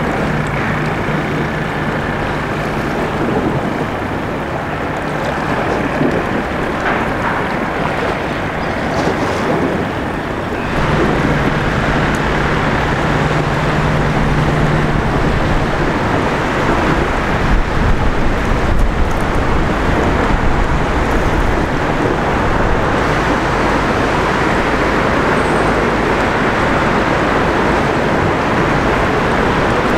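Passing crude oil tanker: a low steady engine hum over a constant wash of water and wind. The hum comes and goes, and the whole sound gets louder about ten seconds in.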